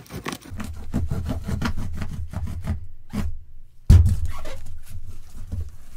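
Knife sawing and scraping through packing tape and cardboard in rapid strokes. It breaks off about three seconds in; then comes a loud thump and the rustle of the cardboard box being handled and its flaps pulled open.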